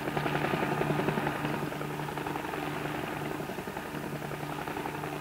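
Bell 47G-3 helicopter in flight, its piston engine and two-blade main rotor running steadily as a low hum holding one pitch, with a fast flutter.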